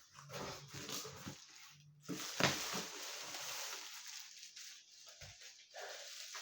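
Packing material in an opened shipping box rustling and crinkling as it is handled, with one sharp crackle about two and a half seconds in.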